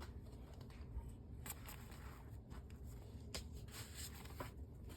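Faint rustling of the paper pages of a handmade paper-bag journal being handled and turned, with a few soft ticks spread through.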